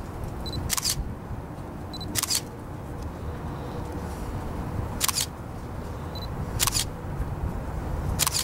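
DSLR camera shutter firing five times, about one and a half seconds apart, with a short high beep just before three of the shots, over steady low background noise.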